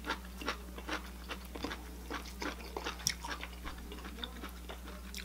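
A person chewing a mouthful of air-fried chicken drumstick close to the microphone: soft, irregular wet clicks and smacks, about two a second. A steady low hum runs underneath.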